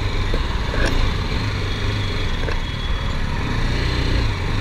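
The 313cc single-cylinder engine of a BMW G 310 GS motorcycle running steadily while the bike is ridden.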